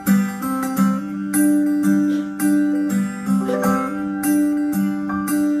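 A live rock band playing the opening of a song, with guitar prominent, its notes changing every half second or so.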